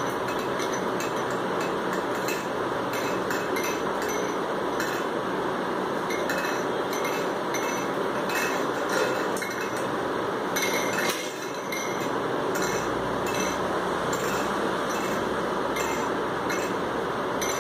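Irregular light clinks and taps over a steady background hiss.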